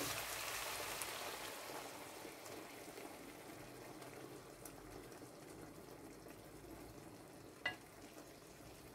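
Beaten eggs poured into a hot frying pan of sautéed mushrooms, prawns and gulas in olive oil, sizzling. The sizzle is loudest at first and dies down over the next few seconds. There is one brief tap near the end.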